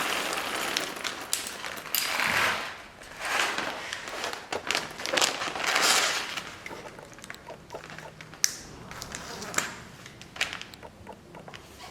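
Plastic vacuum-sealer bag being handled: rustling and crinkling in several swells, with light clicks and taps that thin out toward the end.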